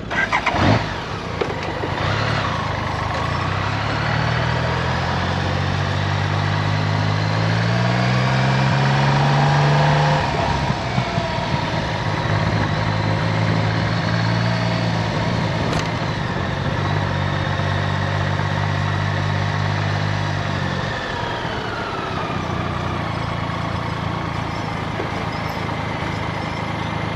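Car engine running at low speed: the engine note rises about a third of the way in, holds steady, then drops back about three-quarters of the way through.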